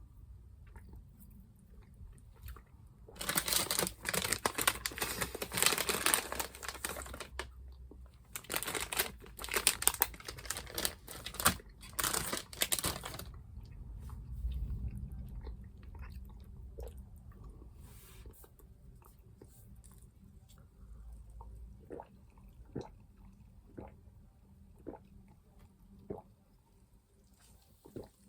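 Crinkly sweet packaging being handled in several rustling stretches over the first half, then chewing with scattered small mouth clicks.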